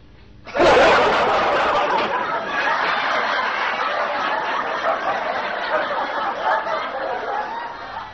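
Audience laughter from a sitcom laugh track, bursting in a little over half a second in and holding as a loud, dense crowd laugh for about seven seconds, then dropping off at the end.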